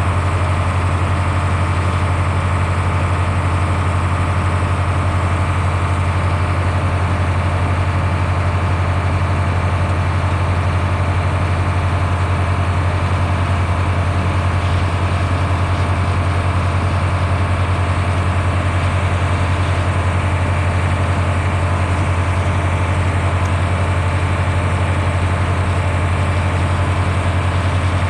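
Heavy engine running steadily at one constant speed: a deep, even drone with no change in pitch or level.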